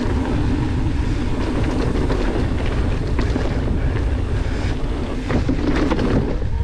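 Wind rushing over an action camera's microphone as a mountain bike rolls along a dirt trail, with tyre noise and a few knocks and rattles from the bike in the second half.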